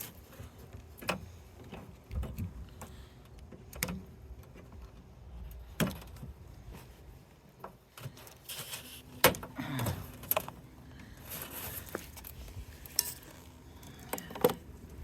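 Irregular metal clanks, knocks and clicks from handling parts while dismantling a soda vending machine, with the sharpest knock about nine seconds in.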